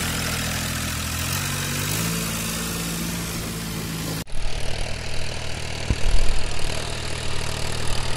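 Modified Ford 3600 tractor's engine running steadily as it drives off, its note stepping up about a second in. After a cut about four seconds in, the tractor's engine is heard pulling a cultivator through the field, with rumbling gusts on the microphone.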